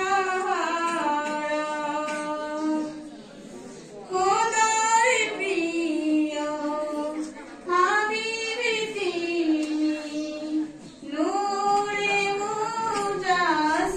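A single high female voice singing unaccompanied, in four long drawn-out phrases with held notes and short breaths between them.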